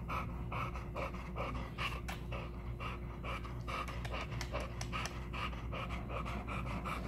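A pit bull-type dog panting steadily with its tongue out, quick breaths at about three a second.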